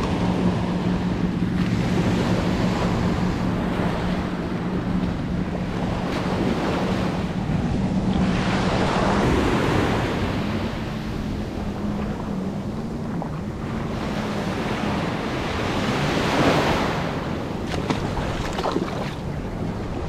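Surf washing up a sandy beach, the wash swelling and fading every few seconds, with wind buffeting the microphone. A steady low hum runs underneath.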